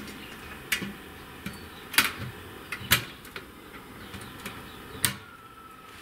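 Metal lid of a medical sterilizer drum used as a smoker being set on and seated, giving a series of sharp metal clicks and knocks. The loudest come about two and three seconds in, with another near five seconds; this is the smoker being closed once the smoke has started.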